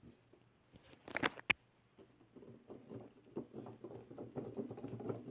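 Keys and hammer action of a Yamaha CP-70 electric grand piano being played: two sharp knocks about a second in, then a run of soft key and hammer taps with faint notes.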